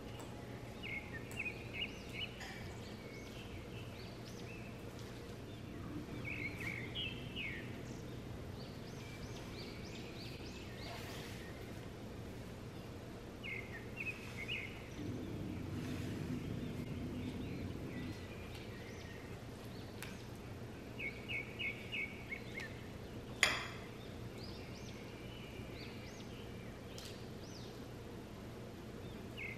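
Kitchen prep sounds over a low steady hum: a chef's knife cutting flour tortillas on a wooden board, and one sharp knock about two-thirds of the way through. Short bursts of quick bird-like chirps come back several times in the background.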